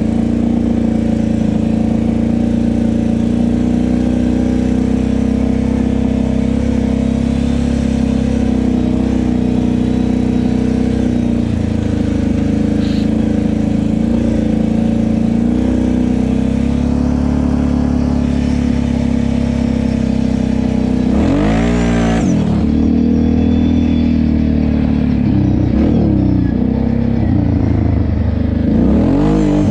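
Kawasaki KFX 700 ATV's V-twin engine running at a steady throttle, then revved up and back down about two-thirds of the way in and a few more times near the end.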